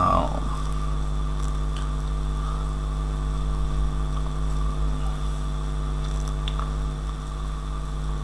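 Steady electrical hum, mains buzz picked up through the microphone, with a couple of faint clicks.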